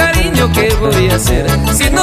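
Latin dance music with a steady beat and a wavering melody line, an instrumental stretch of the song between sung lines.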